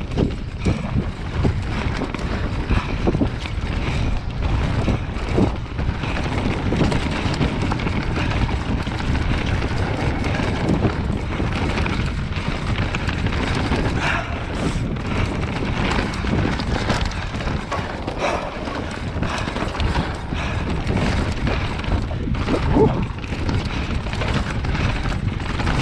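Commencal Meta Power 29 electric mountain bike rolling fast down a dirt singletrack: steady tyre noise and wind on the microphone, broken by frequent knocks and rattles as the bike goes over the bumpy trail.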